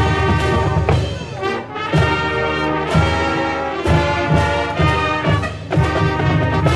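Marching band playing, brass to the fore, with a steady beat about once a second.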